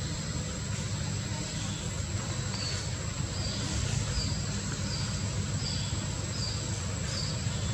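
Outdoor background noise: a steady low rumble and a thin steady high whine, with a small animal's short high chirp repeating evenly, about three every two seconds, from a couple of seconds in.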